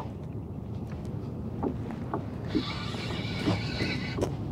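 Fishing reel being cranked as a hooked fish is reeled in toward the kayak, a whirring that starts about halfway through and stops near the end, over a low steady rumble of wind on the microphone, with a few faint knocks.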